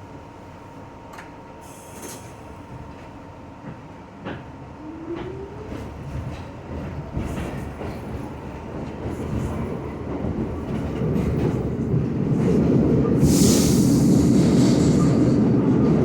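An R62 New York City Subway train running and picking up speed, its rail noise growing steadily louder. There is a brief rising whine about five seconds in and a short hiss of air near the end.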